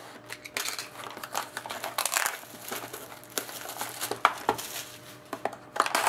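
Plastic shrink-wrap being torn and pulled off a sealed cardboard card box, crinkling and crackling irregularly, with a few sharper crackles.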